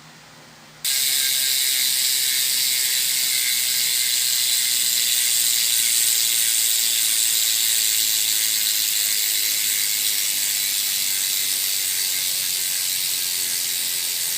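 Bicycle rear freehub clicking fast and steadily as the rear wheel spins freely, its pawls ratcheting in a continuous buzz. It cuts in abruptly about a second in.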